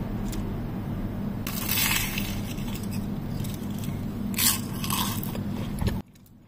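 Flaky puff-pastry egg tarts crackling and scraping against a wooden board as they are handled, in two short stretches about a second and a half in and around four and a half seconds, over a steady low hum. All sound cuts out suddenly near the end.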